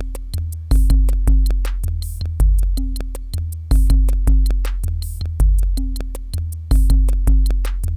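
Electronic drum-machine beat played from an Akai Force: rapid, evenly spaced hi-hat ticks over deep bass kicks whose pitch steps up and down, with occasional snare-like hits.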